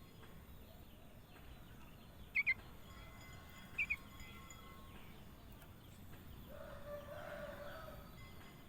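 Kutilang emas (a bulbul) giving two short double chirps about two and a half and four seconds in, followed near the end by a lower, longer warbling call.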